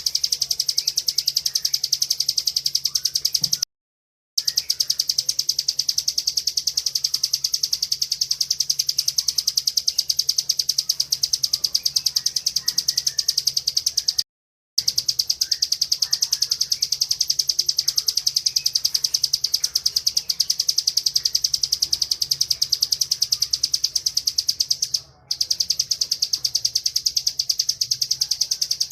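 Bar-winged prinia (ciblek) singing its 'ngebren' song: a long, very fast, high-pitched trill of rapidly repeated notes. It is broken by two short silences, about four seconds in and about fourteen seconds in.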